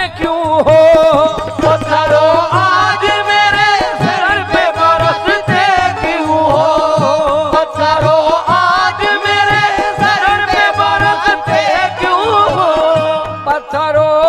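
Qawwali music: male voices singing an ornamented, gliding melody over a harmonium, with a steady hand-drum beat underneath.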